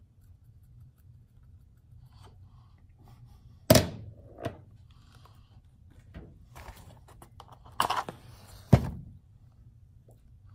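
Two sharp thunks of objects being handled and set down, about four seconds in and near the end, with small clicks between; just before the second thunk, a short scraping burst as a match is struck on its matchbox.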